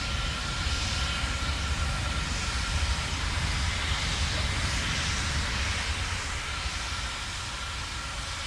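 Relativity Space Terran 1 rocket's first-stage engines heard as a steady, deep, noisy rumble with hiss during ascent, easing slightly near the end.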